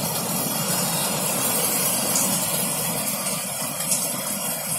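Heavy monsoon rain falling steadily.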